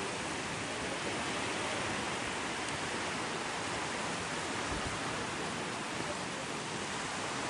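Sea surf on a beach: a steady, even rush of breaking waves with no single crash standing out.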